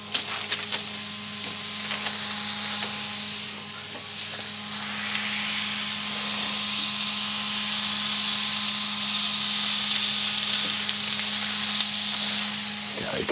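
Ground-beef smashburger patties sizzling steadily on a hot griddle plate over charcoal. The sizzle grows louder about five seconds in as a second patty is pressed flat onto the plate under a burger smasher.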